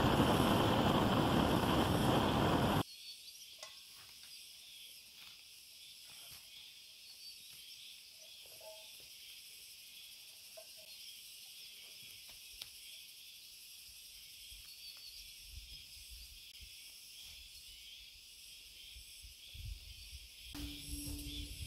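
A handheld gas torch burns with a loud, steady rush for about three seconds, then cuts off abruptly. A steady high chorus of forest insects follows, with faint scattered rustles and ticks. Near the end a steady low hum comes in.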